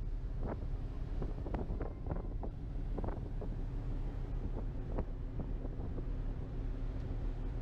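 Wind buffeting a camera's built-in microphone on a ferry's open deck, a heavy, steady low rumble. A faint steady hum from the ship runs underneath.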